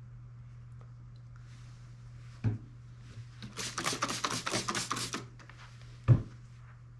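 Workbench handling noises: a knock, then a quick run of sharp clicking taps lasting under two seconds, then a louder knock, over a steady low hum.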